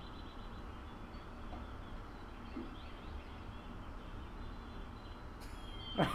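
Quiet film-soundtrack ambience: a steady low hum with a few faint high chirps. A brief hiss comes near the end, and a much louder sound starts right at the very end.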